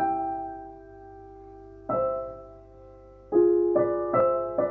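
Slow improvised solo piano: chords struck and left to ring out a couple of seconds apart, then several in quick succession near the end.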